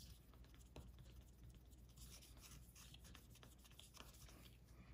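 Faint rubbing and scratching of a cloth pad worked over a freshly applied screen protector on a smartwatch face, smoothing it down. Very quiet, with a few tiny ticks.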